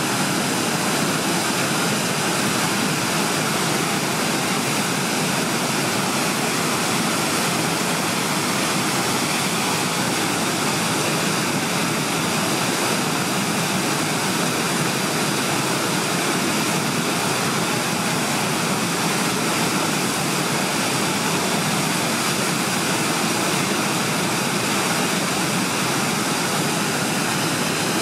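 Steady rush of whitewater from tidal rapids, the water of a fast tidal current breaking over a standing wave.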